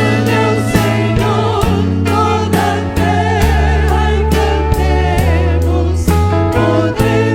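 A contemporary Christian worship song performed by a band with several voices singing together, over sustained bass notes and a steady drum beat.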